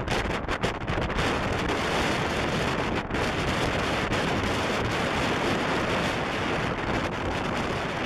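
A strong gale buffeting the microphone: loud, steady wind noise rushing across the whole range from low to high, broken by a couple of momentary dips.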